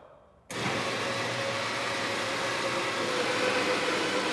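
Electric UTV winch motor running steadily as it winds in the lift strap to raise the plow blade; it starts abruptly about half a second in.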